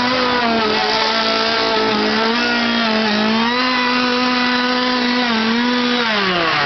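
Chainsaw engine revved up and held at high revs, its pitch dipping slightly a few times. It then drops back down near the end.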